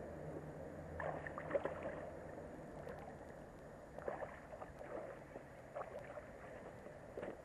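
A hooked pike splashing and thrashing at the water surface as it fights on the line, in several short bursts of splashing.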